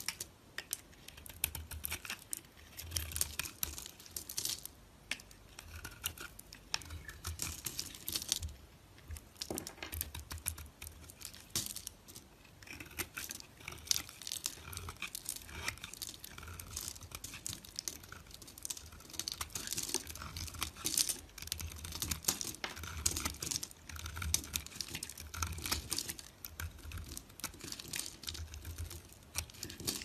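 Snap-off utility knife blade cutting and shaving a block of dry soap: a dense, irregular run of crisp, crackling cuts as flakes break off and crumble.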